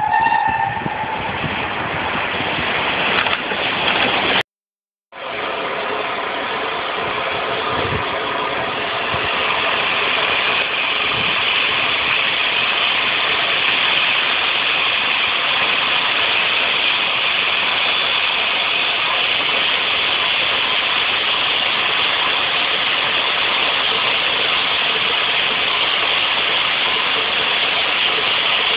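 A steam locomotive's whistle dies away in the first second. After a brief cut to silence, a steam locomotive gives a steady, loud hiss of steam that builds over a few seconds and then holds.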